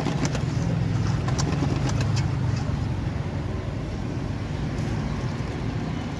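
Wire whisk clinking against a stainless steel bowl as batter is beaten, a few sharp clicks in the first half and one more near the end, over a steady low motor hum that is the loudest sound.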